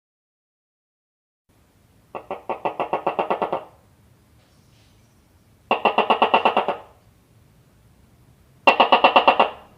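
Gecko calling: three separate runs of rapid chirping clicks, about ten a second, each run lasting about a second, with pauses of a couple of seconds between.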